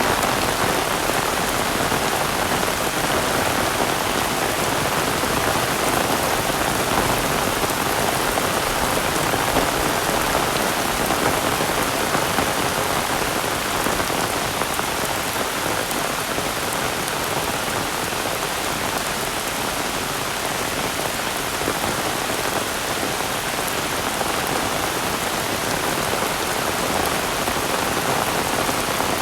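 Heavy rain falling steadily, an even, unbroken patter.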